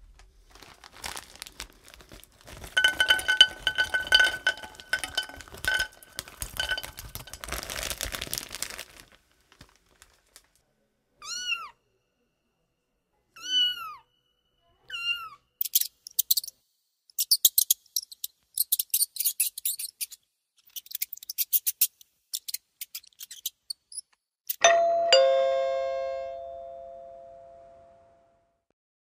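A string of sound effects. First comes several seconds of scratchy rattling with a steady high squeak. Then there are three separate cat meows, each rising and falling, followed by bursts of rapid, very high chirping, and finally a two-tone doorbell ding-dong that rings out and fades over a few seconds.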